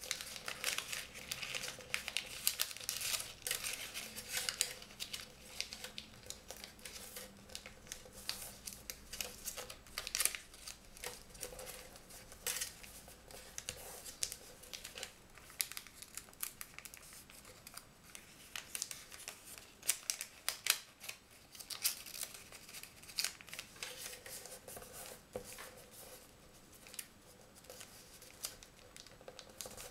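Sheet of origami paper being folded and creased by hand on a tabletop: irregular crisp rustles and crinkles, with small taps as fingers press the folds flat.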